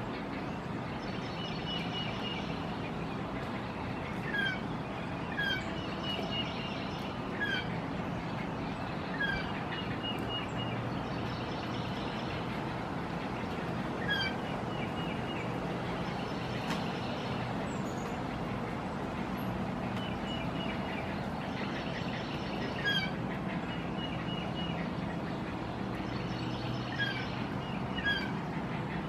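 Birds calling: short high chirps and runs of rapid clicking notes every few seconds, over a steady low rumble.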